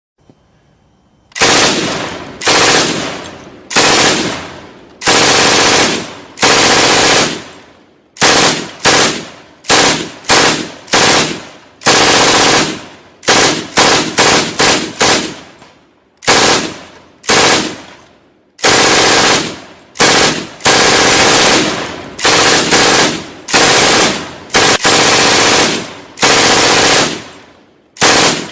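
Firefight sound effect: bursts of automatic gunfire, some short and some a second or more long, each fading away in an echoing tail before the next. It starts about a second and a half in and goes on with short gaps.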